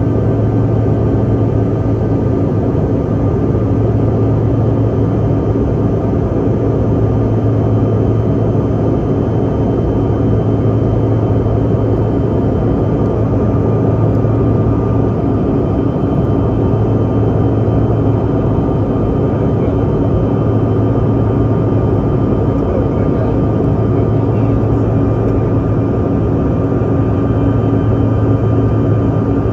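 Steady cabin noise inside a Bombardier CRJ200 regional jet climbing out: the drone of its rear-mounted General Electric CF34 turbofans with rushing airflow, a strong low hum under a few faint steady whining tones.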